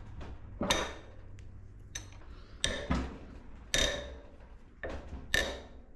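A long steel wrench clanking on the 19 mm cylinder head bolts of an air-cooled single-cylinder diesel as they are loosened: about six sharp metallic clinks, each with a brief ring, spaced unevenly.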